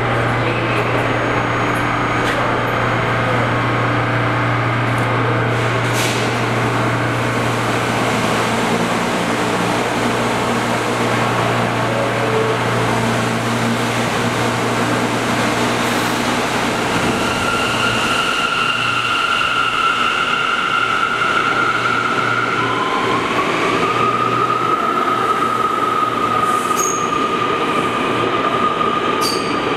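Bombardier R179 subway train standing at the platform with a steady low hum, then starting to pull out: a high electric whine sets in a little past halfway and steps up in pitch as the cars begin to roll.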